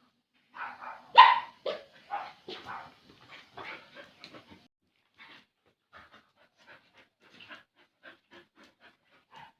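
Dog barking during play: a quick run of barks in the first few seconds, the loudest about a second in, then fainter, sparser yaps.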